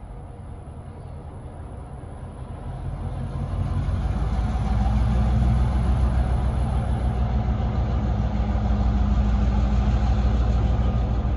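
Two EMD MP15 diesel switcher locomotives approaching with their 12-cylinder two-stroke engines running, a low, steady drone. It grows louder from about three seconds in and then holds.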